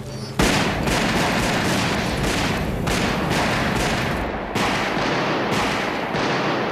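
Rapid automatic gunfire in long bursts. It starts suddenly about half a second in and runs on with a couple of short breaks.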